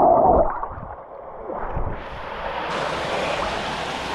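Rushing water of a waterfall pouring into a pool: a steady hiss that grows fuller about two seconds in, after a brief loud rumble of wind on the microphone at the start.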